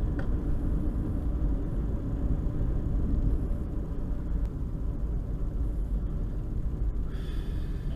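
Steady low rumble of a car heard from inside the cabin. About seven seconds in, a ham radio receiver opens with a hiss.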